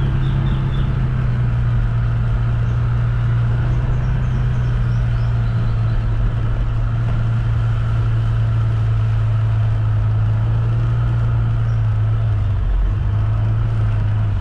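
A vehicle engine running steadily, heard from on board as a loud, even low hum that dips briefly near the end.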